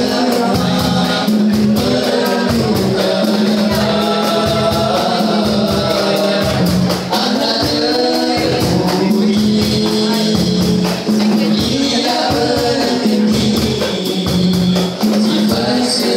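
A nasyid group of boys singing an Islamic song in vocal harmony into microphones, with a low sustained bass voice and a steady, rapid percussion beat.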